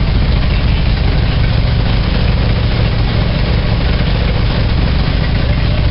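Car engine idling steadily shortly after a cold start in freezing weather, a dense low exhaust pulse at an even level.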